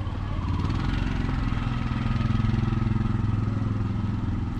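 A motor vehicle engine running with a low, steady hum that grows louder and rises a little in pitch about two seconds in, then eases off.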